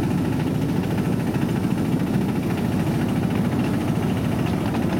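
Diesel engine of a miniature-gauge locomotive running steadily with a fast low throb as the passenger train moves slowly along the track.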